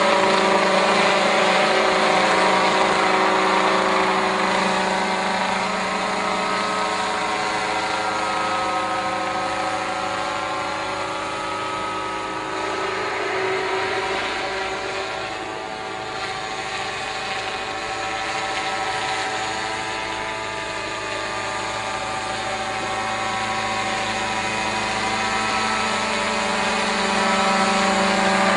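An engine or motor running steadily with a strong, even hum, easing a little in loudness midway and building again near the end.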